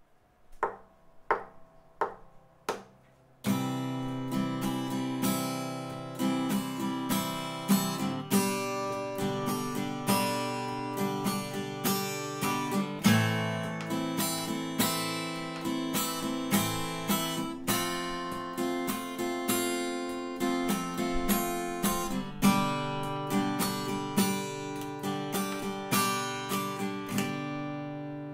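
Acoustic guitar played with a pick: a few single picked notes, then about three seconds in a steady run of strummed chords in the song's main accompaniment pattern, left ringing at the end.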